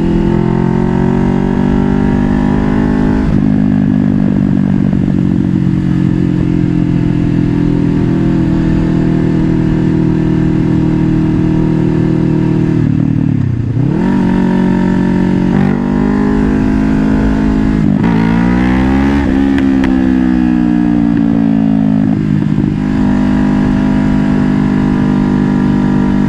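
Kawasaki Ninja 500 parallel-twin engine running under way, picked up by a helmet-mounted mic with a low wind rumble underneath. The engine note mostly holds steady, dips sharply and climbs back about halfway through, then rises and falls again about two-thirds in.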